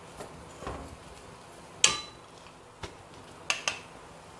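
Metal kitchenware knocking against a cooking pan: one sharp ringing clink about two seconds in, then a few lighter knocks.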